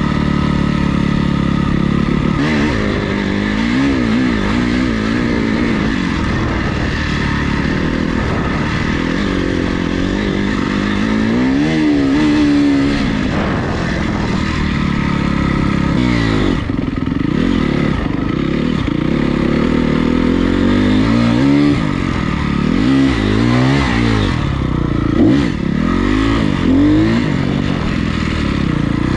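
Honda CRF250R dirt bike's four-stroke single-cylinder engine running under load while being ridden, its pitch rising and falling over and over as the throttle is opened and closed, with the changes coming quicker in the second half.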